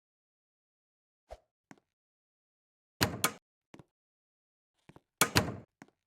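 A few sharp knocks and clicks, with two louder clattering bursts about three seconds and five seconds in.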